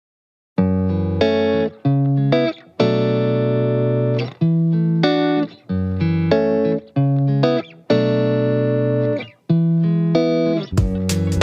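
Background music: a guitar-led tune of held notes that starts about half a second in out of total silence, with a drum beat joining near the end.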